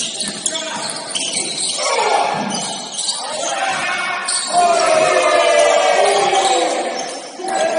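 Basketball game in a gym: voices shouting and calling out, with a basketball bouncing on the court.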